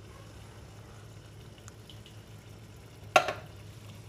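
Canned tomato soup trickling and dripping from the tin into a metal pot of broth, over a low steady hum. A single sharp knock about three seconds in.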